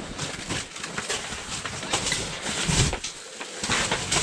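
Irregular rustling and scraping of fabric and gear handled close to the microphone, in short uneven bursts with no steady tone.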